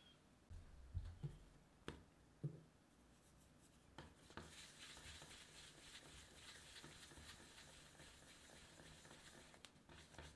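Faint, soft, steady rubbing from about four seconds in, as a hand rolls a small ball of bread dough in circles on a work surface, rounding it to press out the gas. A few light knocks on the surface come in the first couple of seconds.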